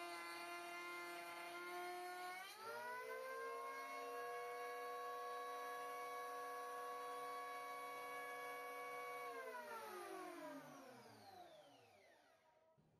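Makita electric hand planer, mounted upside down as a bench jointer, running with a high whine. Its pitch is lower at first while the cut across a board finishes. The pitch rises about two and a half seconds in as the blades run free at full speed, then holds steady. From about nine and a half seconds in the motor is switched off and the whine falls in pitch as it spins down to a stop.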